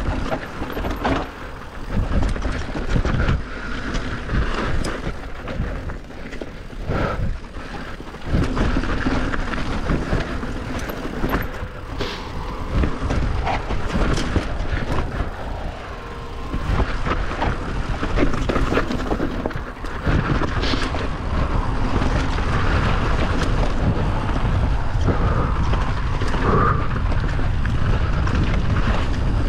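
Rushing noise and rattling knocks of a bike being ridden down a rough enduro trail, the loudness rising and falling with many sharp knocks.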